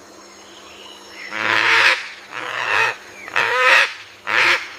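A goose honking: four loud, nasal calls about a second apart.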